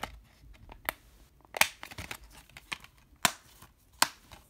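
A plastic Blu-ray case and its disc being handled: a string of sharp plastic clicks and snaps as the disc is pressed on its centre hub and the case is closed. The loudest snap comes about a second and a half in, with two more near the end.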